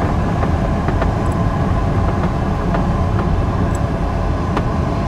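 Steady rush of airflow around a Duo Discus glider in gliding flight, heard as wind noise on the microphone, with a few faint clicks.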